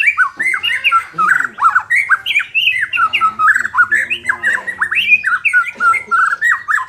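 White-rumped shama (murai batu) singing a fast, unbroken string of varied sweeping and harsh notes.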